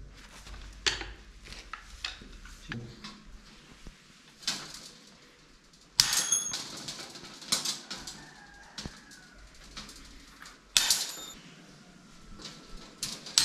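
A 750 mm bolt cutter snapping through 6 mm steel rebar rod: a series of sharp metallic snaps, the loudest about halfway through and another near the end, each followed by a brief high ring. Lighter clicks and clinks from the cut pieces and the coil come in between.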